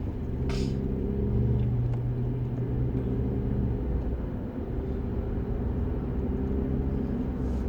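Steady low mechanical hum and rumble, with a few even tones held throughout.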